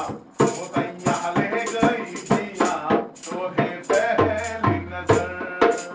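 Live chutney music: a barrel hand drum and a rattling shaker beat a fast, even rhythm of about four strokes a second under a singing voice.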